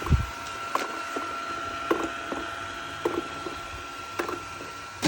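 Xiaomi robot vacuum E10 running in mop mode with a steady high whine, with a low thump at the start and a scatter of light clicks and knocks every half second to a second.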